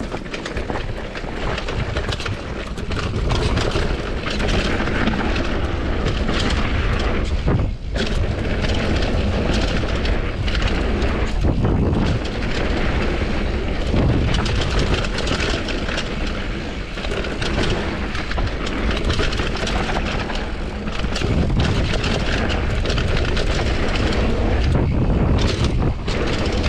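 Wind buffeting the action camera's microphone over the clatter of a Commencal Supreme DH downhill mountain bike at speed: tyres on rough dirt with frequent knocks and rattles from chain and suspension.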